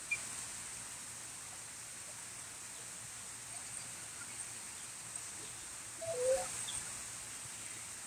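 Faint, scattered chirps from a mixed flock of weavers and pigeons feeding on the ground, over a steady high hiss, with one louder, lower call about six seconds in.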